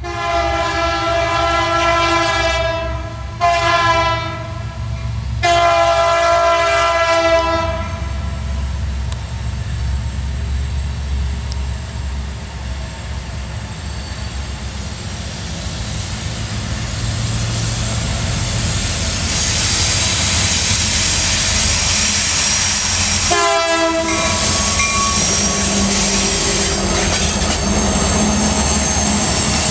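BNSF coal train's lead SD70MAC locomotive sounding its air horn for a grade crossing: a long blast, a short one, then another long one, and a brief blast about 23 seconds in. Between and after the blasts the diesel locomotives and loaded hopper cars rumble closer and pass, with wheel and rail noise growing louder over the last ten seconds.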